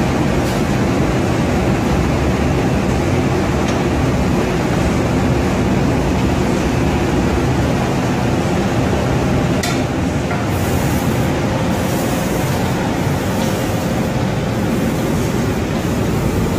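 Steady, loud running noise of a cabinet-door spray-painting line, from its air supply and exhaust fans and its roller conveyor. A light click sounds twice, once near the start and once about ten seconds in.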